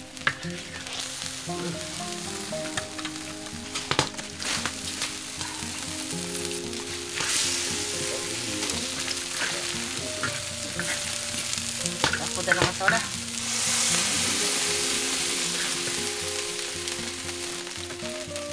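Hissing and sizzling from a hot, steaming wood-fired wok of greens, with sharp clinks of a utensil against the wok about 4 seconds in and again around 12 seconds. The hiss swells louder for a few seconds past the middle. Soft background music plays underneath.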